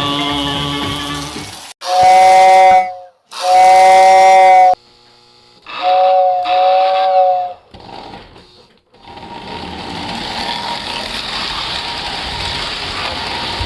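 Model train's steam-locomotive whistle, a chord of several notes, blown three times: two blasts of just over a second and a longer third one. Then a steady rushing hiss sets in at about nine seconds.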